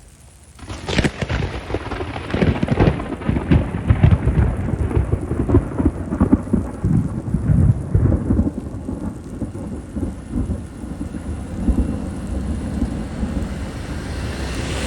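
An off-road 4x4 driving over rough trail, heard close up as a heavy rumble full of rapid knocks and crunches, starting about half a second in.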